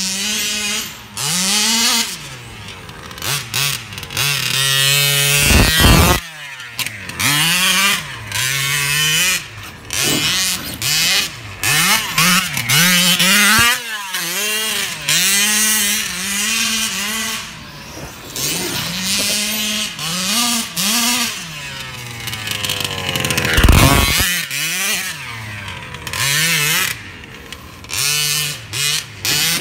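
Large-scale RC buggy's motor revving up and down again and again as the car is driven hard, its pitch rising and falling with the throttle. Two heavy low thumps come about six seconds in and near twenty-four seconds.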